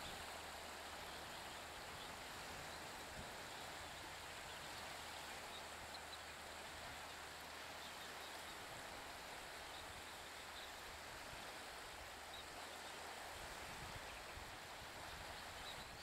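Steady, faint outdoor background hiss, with a few faint short high ticks scattered through it.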